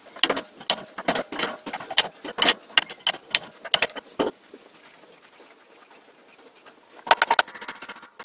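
Irregular metal clicks and clinks as a vintage lathe's spindle assembly is worked apart by hand, with a wrench on the spindle nose and the bronze bearing at its cast-iron housing. The clicks come thick for about the first four seconds, stop for a quiet stretch, then return as a quick cluster near the end.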